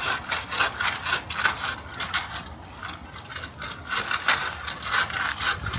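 Manual pole saw cutting into a tree branch in rasping back-and-forth strokes, about three or four a second, with a brief pause near the middle. This is a relief cut made away from the final cut, to take the branch's weight off.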